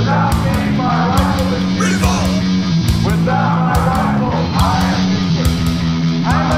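Loud punk rock music: distorted electric guitar over a steady drum beat with regular cymbal hits.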